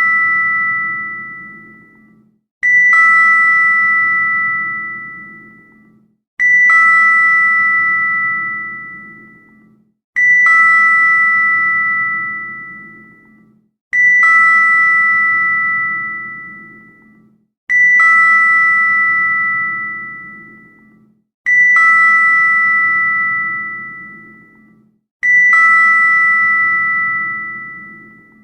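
Elevator arrival bell: a single ding of two tones sounding together, repeated about every four seconds, each one ringing out and fading over about three seconds.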